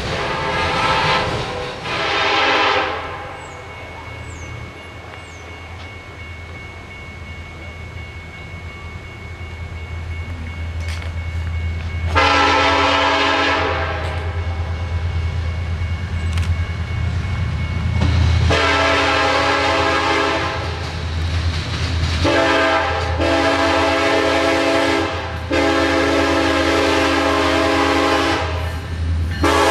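Diesel freight locomotive's air horn, several notes sounding together: a short sounding at first, then four long blasts from the approaching BNSF locomotive, over the steady low rumble of the train.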